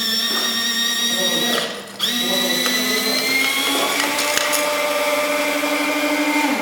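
Small electric motor driving the hydraulic pump of a radio-controlled model construction machine, running with a steady whine. It stops for a moment after under two seconds, starts again, climbs slowly in pitch, then cuts off.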